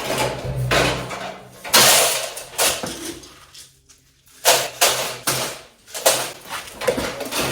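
Dry goat feed (grain and pellets) being scooped and poured into a mixing container: several short rushing pours with knocks and clatter of the scoop and container, and a brief pause a little before the middle.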